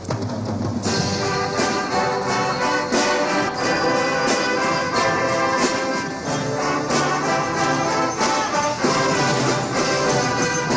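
Corps of drums playing a march on brass horns over snare drums, the full band coming in strongly about a second in.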